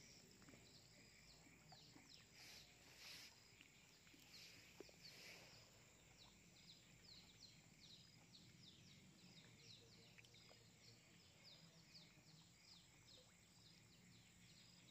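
Near silence: faint outdoor ambience with a bird chirping in quick, short, repeated notes, several a second.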